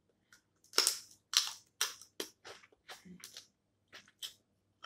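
Snow crab leg shells cracking and snapping apart, about ten sharp cracks in a row, the loudest about a second in.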